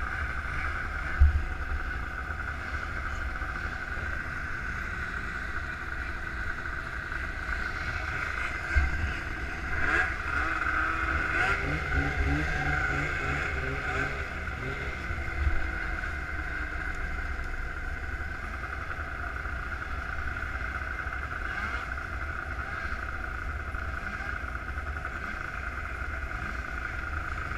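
Snowmobile engines idling steadily in a race staging line, including the rider's Polaris sled, with wind rumbling on the helmet-mounted microphone. There is a sharp knock about a second in, and between about ten and fourteen seconds another engine note rises and falls over the idle.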